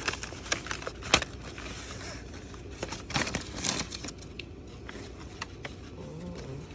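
Hands opening a small gift box: sharp clicks, taps and rustling of the box and its packaging, busiest in the first four seconds and sparser after.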